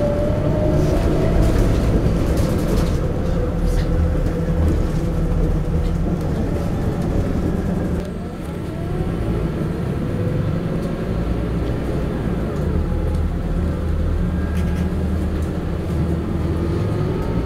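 Scania K94IB coach under way, heard from inside the saloon: a deep engine rumble with a whine from the ZF gearbox that glides up and down with road speed. About eight seconds in the sound drops briefly, then a new rising whine begins.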